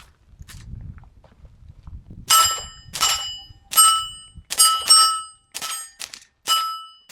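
A suppressed .22 LR pistol (Tactical Solutions PacLite with Axiom suppressor) fired in a quick string of about eight shots starting about two seconds in. Each shot is a sharp crack followed by a short metallic ring at the same pitch every time.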